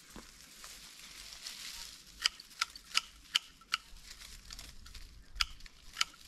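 A run of sharp clicks over a faint crackling rustle: the clicks begin about two seconds in, two to three a second, with two more near the end.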